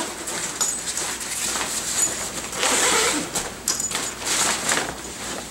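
The zipper along the bottom pocket of a fabric float tube being pulled open in several long zips, with the fabric rustling as it is handled.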